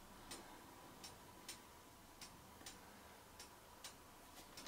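Near silence: room tone with faint, sharp ticks, about one or two a second, unevenly spaced.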